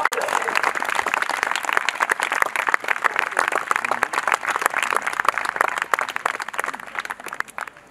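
Audience applauding, many hands clapping at once, dying down toward the end.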